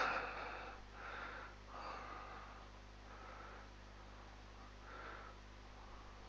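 Faint breathing close to the microphone, several soft breaths, over a steady low electrical hum.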